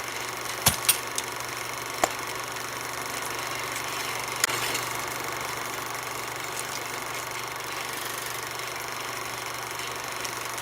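Film projector running steadily with an even mechanical hum, and a few sharp clicks in the first half.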